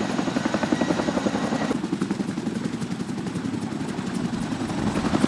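CH-47 Chinook tandem-rotor helicopters running, their rotor blades making a fast, steady beat. About two seconds in, the sound turns duller as the higher hiss drops away suddenly.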